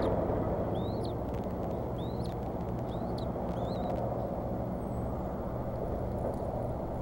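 Bald eaglets giving short, high, rising chirps, about six in the first four seconds and fainter after, over a steady low rumble.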